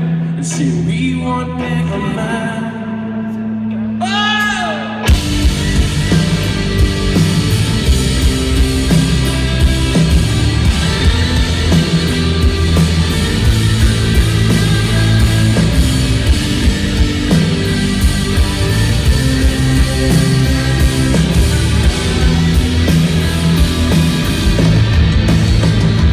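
Rock music: a sparse opening with a sung note gliding upward, then the full band with drums and distorted guitars comes in about five seconds in and plays on.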